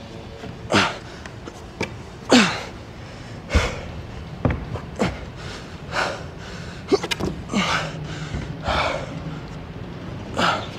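A bouldering climber's hard, gasping breaths and short grunts of effort, roughly one a second, each falling in pitch, with a few sharp knocks in between.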